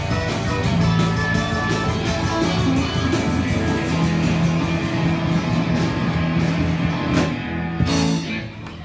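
Live band playing an upbeat rock-and-roll song with a steady beat, ending on a final hit about eight seconds in.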